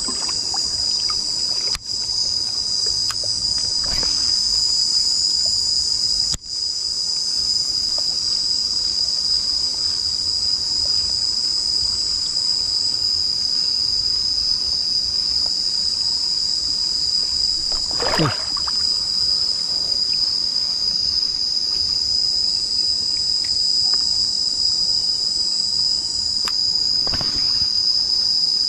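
Steady, loud chorus of insects: one unbroken high-pitched buzzing drone that holds the same pitch throughout.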